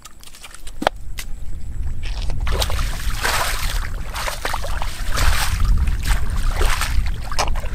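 Bare feet sloshing through shin-deep mud and water, each stride a wet splash, about one a second from a couple of seconds in.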